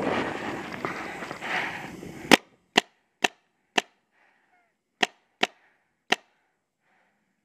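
After about two seconds of noisy haze, a magfed paintball marker fires seven sharp shots: four about half a second apart, then after a short pause three more.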